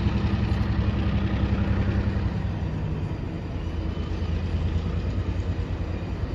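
Union Pacific diesel yard locomotives running with a deep, steady engine rumble as they pull a string of hopper cars, one unit throwing dark exhaust smoke under load. The engine note shifts about two and a half seconds in.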